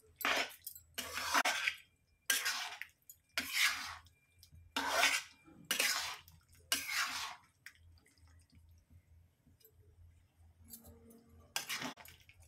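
Spatula stirring and scraping a thick, wet minced-meat-and-liver curry in a kadhai. There are seven strokes about a second apart, a pause of a few seconds, and one more stroke near the end.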